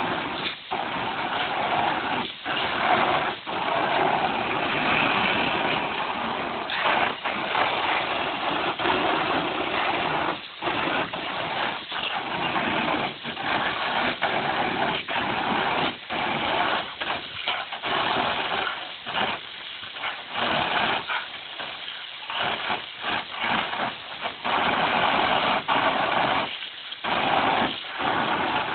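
Garden hose water spraying hard against a plastic kiddie pool, a steady hiss and patter broken again and again by short dips as a dog bites at the stream.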